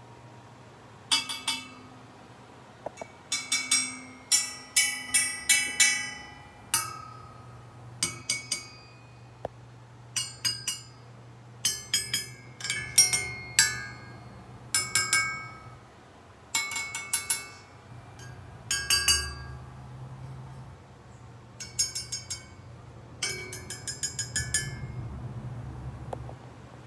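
A serrated knife blade tapping a 833 silver candelabrum in quick groups of strikes, each giving a bright, short ringing clink.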